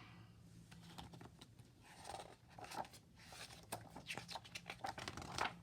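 Faint paper rustling and small clicks of a picture-book page being turned, over a low steady hum.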